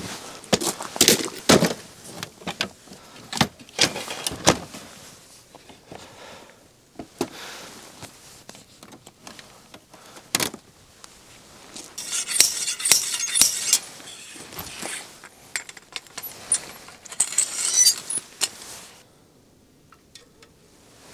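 Camping gear being handled by hand: a run of clinks, knocks and rustles, with dense clusters of rapid clinks about twelve and seventeen seconds in.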